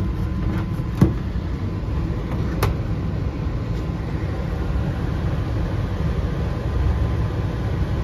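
Furnace blower running steadily, a low rumble of air moving through the ductwork while the system heats. A sharp click about a second in and a fainter one a couple of seconds later.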